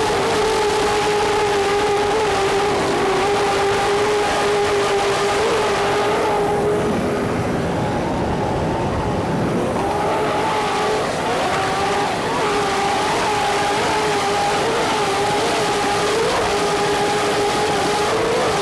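Offshore racing powerboat's engines running at full speed, a steady high drone that wobbles slightly in pitch. From about six to ten seconds in, the drone fades under a rushing noise of spray and wind, then comes back.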